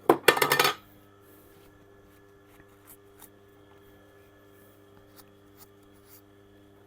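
A brief metallic clatter, a quick run of clinks and rattles lasting under a second, like hard metal pieces knocking together. Afterwards only a faint steady hum with a few light ticks.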